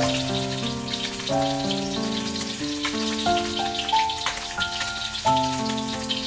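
Fish frying in shallow oil in a steel wok, the hot oil crackling and spitting steadily. Background music plays over it, a melody of held notes over chords.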